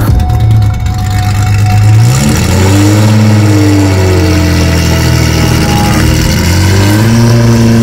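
Nissan Skyline C110 race-replica's engine running, steady at first, then revving up about two seconds in and again near the end as the car pulls away.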